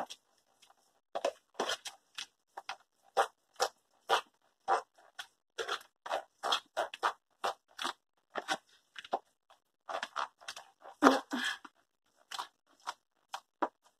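A metal utensil stirring wet batter in a plastic tub, scraping and clicking against the tub in quick, irregular strokes about two a second.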